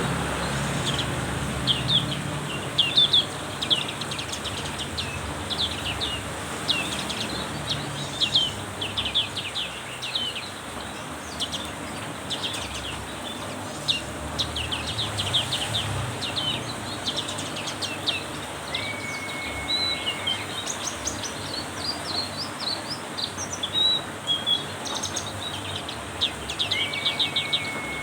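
Black-capped white-eye singing vigorously, a fast, continuous run of high, sharp chirps, over a steady hiss of heavy rain. Two short level whistled notes come in about two-thirds of the way through and again near the end.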